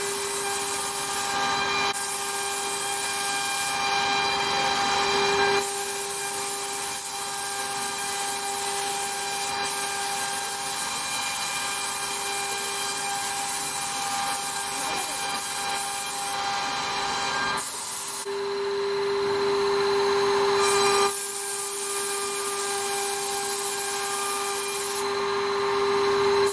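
CNC router spindle whining at a steady pitch while a V-bit carves a design into a wood board, with a loud hiss of cutting. The hiss eases off briefly several times while the whine carries on.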